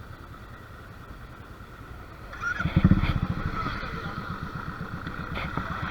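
A motorcycle engine starts about two and a half seconds in, with a brief rev, then settles into a steady, evenly pulsing idle.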